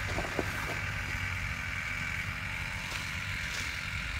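Steady low rumble and hum, with a few faint clicks in the first half second.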